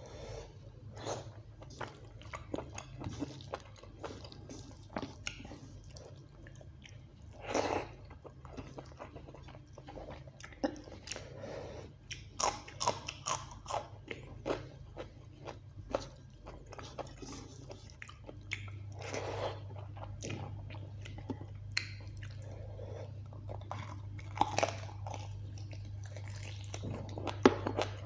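A person chewing and biting mouthfuls of rice with beef curry and green chillies close to the microphone: irregular wet chewing, smacking and crunching. A low steady hum runs underneath and grows louder about two-thirds of the way through.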